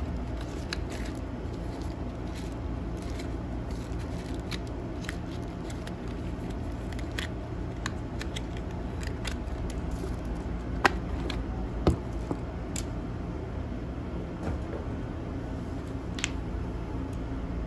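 Small cardboard box and plastic propeller packet being handled: light rustling and scattered small clicks, with two sharper clicks about a second apart near the middle, over a steady low room hum.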